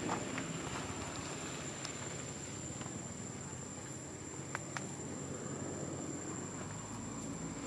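Outdoor background noise with a steady high-pitched whine throughout and a few faint ticks, scattered and irregular.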